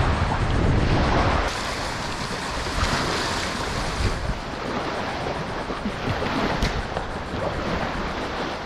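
Wind buffeting the microphone over small waves slapping and lapping in shallow, choppy water. The wind rumble is heaviest for about the first second and a half, then eases to a steadier wash of water noise.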